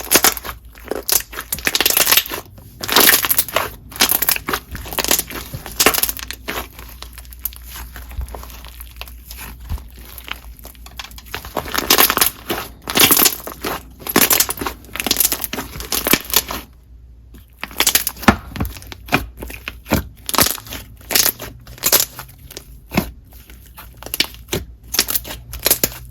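Hands squishing and pressing a clear Korean water jelly slime with foam chunks mixed in, making dense, irregular wet pops and crackles. There is a brief pause about two-thirds of the way through.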